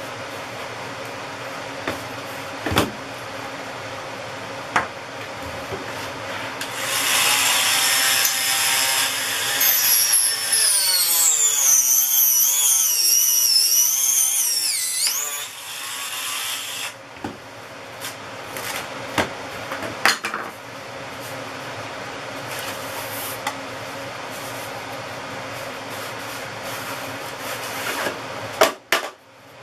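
Dremel rotary tool grinding on a carbon-fibre composite tube for about ten seconds, starting around seven seconds in. Its high whine wavers up and down in pitch. Before and after it there is a steady background hum, with light clicks and knocks as the tube is handled.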